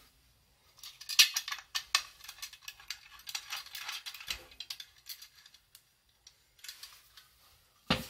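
A stainless steel hip flask being handled: several seconds of metallic clicking and rattling, then a single thud near the end as the flask is set down on a cloth-covered table.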